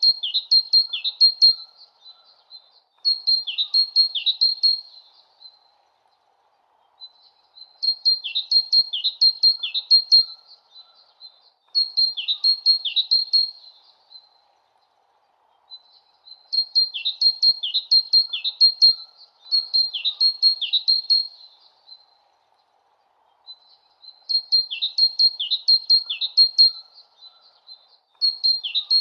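Small songbird twittering: bursts of rapid high chirps, each with quick downward-sweeping notes, about two seconds long. They come in pairs with short gaps between, the pattern recurring about every eight seconds.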